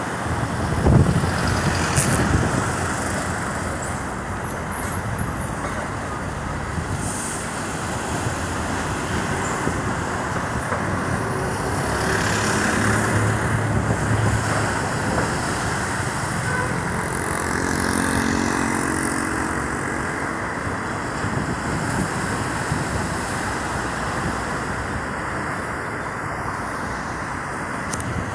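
Steady engine rumble with traffic-like noise, and a humming engine tone that comes up a little past halfway and fades again.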